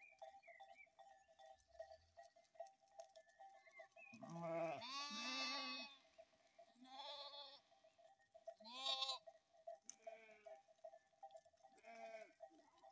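A flock of sheep bleating several times. The longest and loudest call comes about four seconds in, followed by shorter, fainter bleats.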